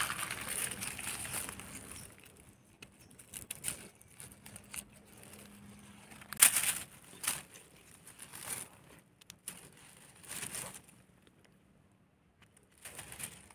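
Dry fallen leaves rustling and crackling in short, uneven scrapes as mushrooms are picked from the leaf litter, with the sharpest crackle about halfway through.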